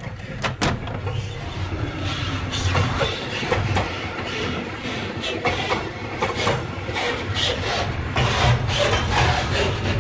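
Intermodal freight train's container and tank-container wagons rolling slowly past: a steady low rumble of wheels on rail with frequent short clanks and clicks, two sharp clicks about half a second in.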